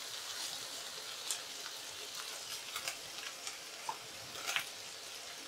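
Sliced potatoes with cumin seeds frying in oil in a metal kadhai, uncovered, to brown lightly: a steady soft sizzle with a few small pops scattered through it.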